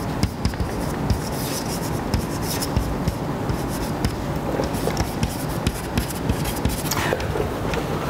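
Chalk tapping and scratching on a blackboard as someone writes, a run of small irregular ticks.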